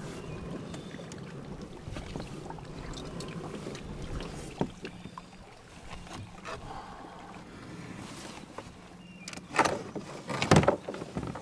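Quiet handling noises of an angler moving about in a fishing kayak with a caught bass, with a few small clicks, then several loud knocks near the end.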